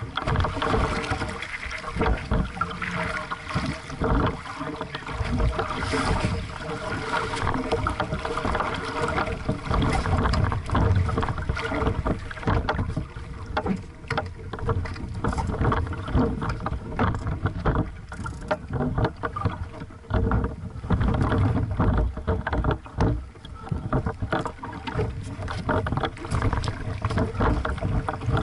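Water splashing and slapping irregularly against the hull of a small aqu@muse sailing dinghy under way on choppy water, with wind rumbling on the microphone.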